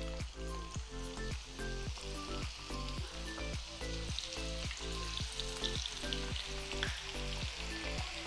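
Hot oil in a frying pan sizzling as potato pieces are dropped in, the sizzle thickening as more pieces go in.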